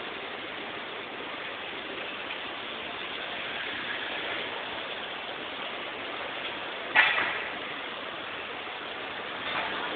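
Steady street noise of city traffic, an even rush without clear engine tones. A single sharp knock stands out about seven seconds in.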